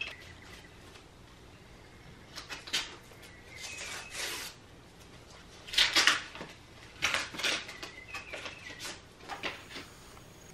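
Paper and packaging rustling and crinkling in short bursts as a present is handled and unwrapped.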